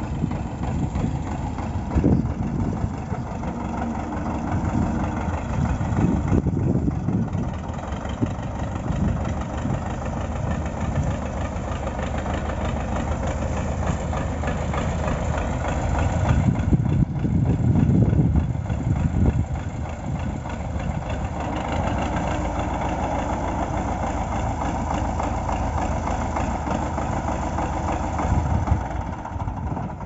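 MTZ-82 tractor's four-cylinder diesel engine running steadily, swelling briefly a few times as the front loader lifts and sets down a round hay bale.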